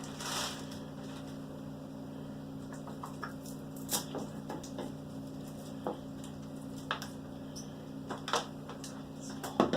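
Scattered light clicks and knocks from handling a laptop power adapter and cord, over a steady low hum.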